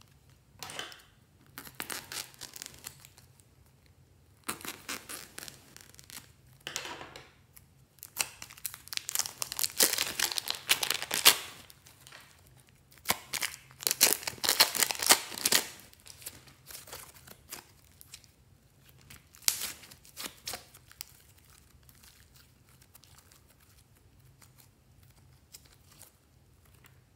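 Slime squeezed by hand out of plastic piping bags: crinkling plastic and crackling, squelching slime in irregular bursts, loudest in the middle and dying down over the last several seconds.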